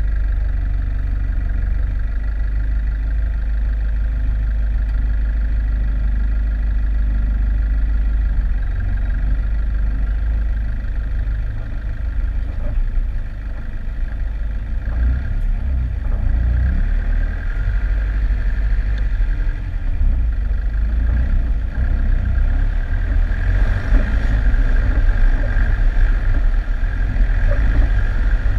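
Four-wheel-drive vehicle's engine running at low speed as it crawls over a rough, rocky bush track, heard through a bonnet-mounted camera as a steady low rumble. A steady high whine runs along with it and grows louder in the last few seconds.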